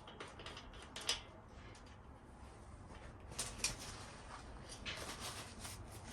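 Faint, scattered clicks and scraping of hand tools being worked on the motorcycle's transmission, as the hex-head dipstick is removed.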